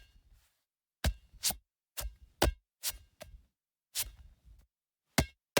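A series of about ten sharp knocks at irregular intervals, with dead silence between them.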